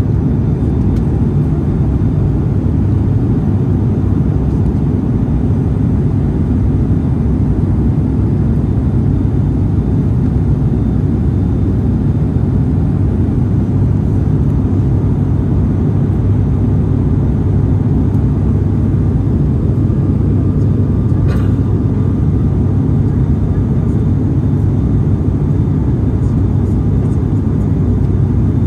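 Steady cabin noise of a twin-turboprop airliner in flight: a constant low drone from the propellers and engines, with a faint click about two thirds of the way through.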